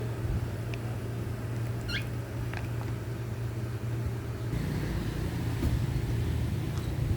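Young birds giving a few short, thin calls while being hand-fed, one sliding down in pitch about two seconds in, over a steady low hum that grows louder about halfway through.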